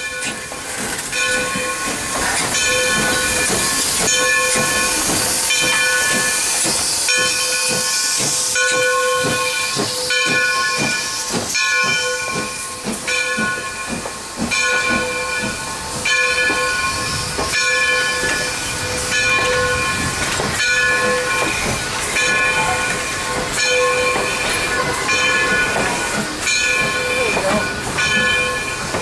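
A steam locomotive's bell ringing steadily, about one stroke a second, as the train rolls slowly past close by. Steam hisses loudly over the first several seconds, and the knocks and clanks of the wheels and cars run underneath.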